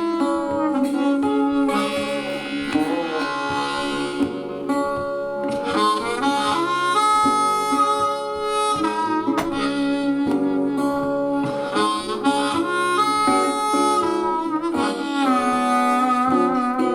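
Instrumental music played back through speakers driven by an Onkyo A-8450 Integra stereo amplifier in an audio test. A melody of held notes moves from note to note every second or so over an accompaniment.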